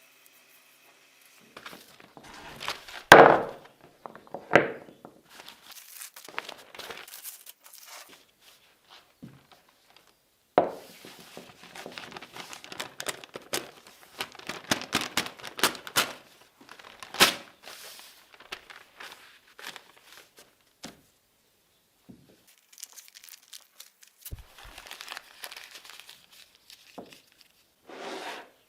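Newspaper being handled, folded and crumpled: irregular crinkling and rustling with sharp crackles, the loudest crunch about three seconds in.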